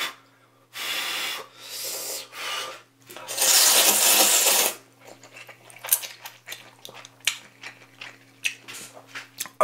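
A person slurping jjamppong noodles close to the microphone: three short slurps, then one long loud slurp about three seconds in, followed by soft wet chewing clicks.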